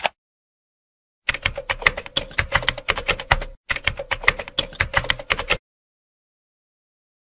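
Computer keyboard typing: two quick runs of rapid keystrokes with a brief pause between them, after a single click at the start.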